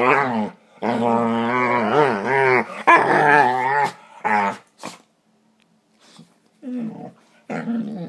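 Dogs play-fighting, making long, drawn-out growling moans whose pitch wavers up and down for about four seconds, then a short one, a pause, and a few shorter growls near the end.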